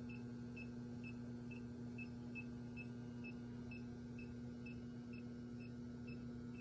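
Klein circuit breaker finder receiver giving short, high beeps about twice a second as it is swept over a breaker panel, with a steady low hum underneath.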